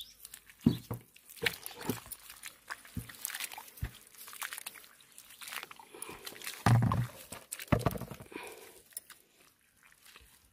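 Wet clay-and-straw mud being squelched and sloshed by hand as water is worked into it, with irregular slaps and crunches, a heavier thud about a second in and a louder stretch about seven seconds in. The mud had set hard and is being softened with water for plastering.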